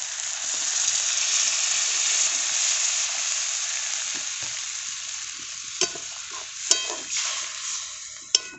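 Water poured into a hot karai of spice paste fried until the oil separated, hitting the oil with sizzling that swells over the first couple of seconds and then slowly fades. A metal spatula clinks against the pan a few times in the second half.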